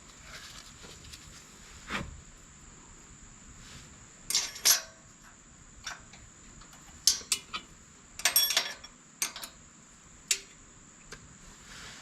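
Light clinks and clatters of small metal parts and tools being handled, coming in several short clusters with quiet between them.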